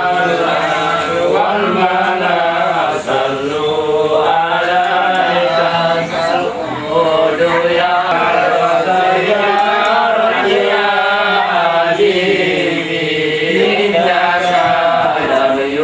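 Voices chanting a melodic Islamic devotional chant together, held and gliding lines sung without pause, typical of the group chanting at an aqiqah.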